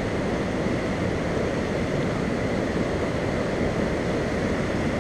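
Steady rushing noise of high brown river water spilling over a low-head dam and churning into whitewater below the spillway.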